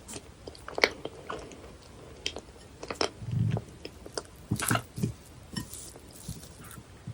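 Close-miked chewing of dense, fudgy cheesecake: irregular sticky mouth clicks and smacks, with a soft low thud about three seconds in.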